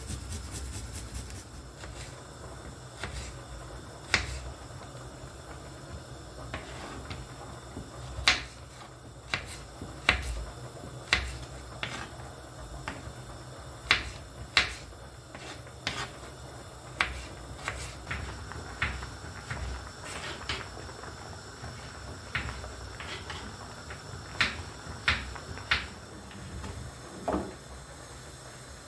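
Kitchen handling sounds: dishes, utensils and cupboards clicking and knocking at irregular moments, roughly once a second, over a low steady hum, with a short falling squeak near the end.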